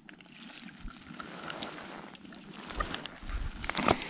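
Wind buffeting the microphone, with scattered light clicks and rustles. The low wind rumble comes in about three seconds in and grows louder near the end.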